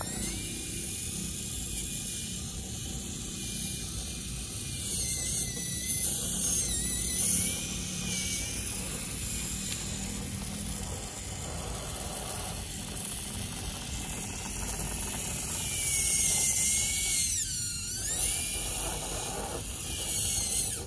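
Electric motor and geared drivetrain of an RC scale crawler truck whining as it crawls under load, the pitch rising and falling with the throttle.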